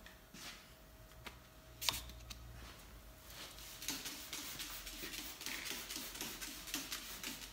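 Hand trigger spray bottle squirting water in quick repeated sprays onto a car's paint, wetting it for wet sanding. A single sharp click comes about two seconds in.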